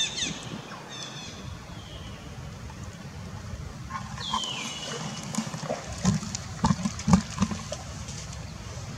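Long-tailed macaques calling with a few short, high squeals that fall in pitch, the longest about four seconds in, followed by a cluster of sharp knocks between six and seven and a half seconds in.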